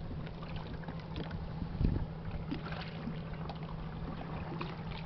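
Sounds aboard a wooden fishing boat as a shrimp net is hauled in over the side: a steady low hum under scattered light knocks and water sounds, with one louder low thump a little under two seconds in.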